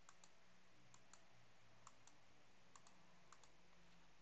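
About ten faint clicks of a computer mouse, many in quick press-and-release pairs, spaced through near-silent room tone.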